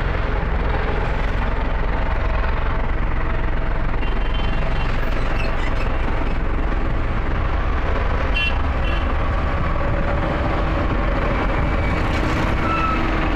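Road roller's diesel engine running steadily under way.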